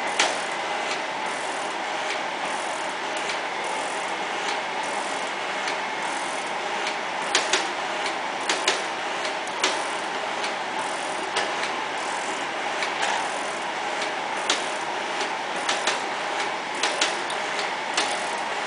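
G&E 20-inch mechanical shaper running, its ram stroking back and forth with a steady mechanical clatter and regular ticking, and louder sharp clacks here and there.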